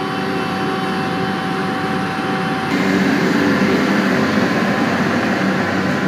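Vögele asphalt paver's diesel engine running steadily, a low hum with a few held tones; about three seconds in the sound changes abruptly and gets a little louder and closer.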